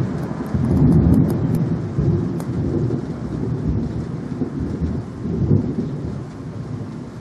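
Thunder rumbling, swelling loudest about a second in and again about five and a half seconds in, over light rain.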